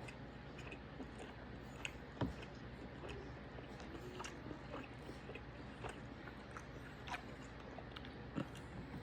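A person quietly chewing a mouthful of steak, with scattered small clicks and a couple of louder taps.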